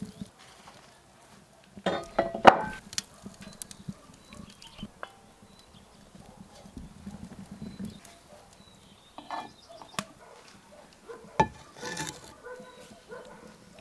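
Horses at work: scattered hoof knocks and short noises, loudest about two seconds in, with more around ten and twelve seconds.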